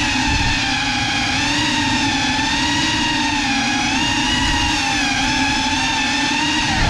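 Geprc Cinelog35 6S cinewhoop's brushless motors and ducted propellers whining steadily, the pitch wavering gently with small throttle changes as it cruises. Heard from a GoPro mounted on the drone itself.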